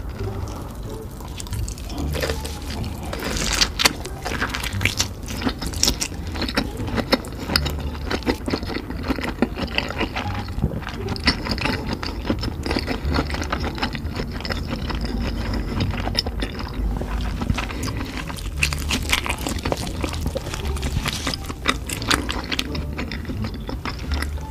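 Close-miked eating sounds: wet chewing and slurping, made up of a dense, continuous run of small smacks and clicks.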